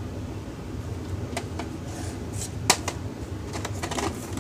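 A VHS tape case being handled and turned over in the hand: a few light clicks and taps, the sharpest about two and a half seconds in, over a low steady hum.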